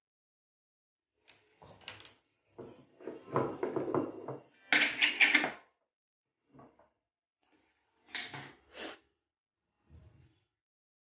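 Intermittent clatter and scraping of kitchen utensils, the loudest burst about five seconds in: a steel-lidded ghee jar being opened and a spoon scraping ghee out of it.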